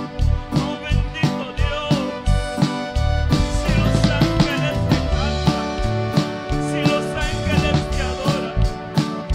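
A live church band plays music, with a drum kit keeping a steady beat under sustained instrument tones.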